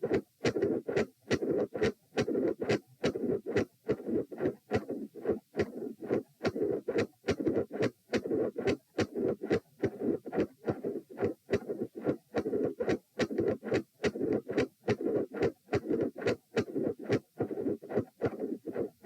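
Human heart sounds recorded on the chest: loud first and second heart sounds, each split, giving a steady rhythm of short thuds, four to a heartbeat. A constant hiss runs under them, with a midsystolic murmur.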